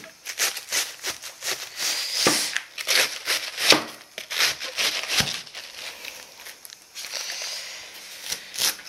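Kitchen knife shredding a head of cabbage on a cutting board: a quick run of crisp crunching slices, each ending with a light tap of the blade on the board, about three a second, thinning out near the end.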